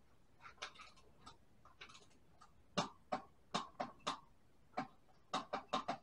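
An irregular run of sharp mechanical clicks from work on an e-bike's rear wheel, a few faint ones at first and louder, closer-spaced ones from about three seconds in.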